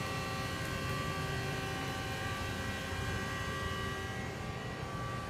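Steady hum of a large CNC lathe running under power, with several steady whining tones over a low machine drone that softens slightly near the end.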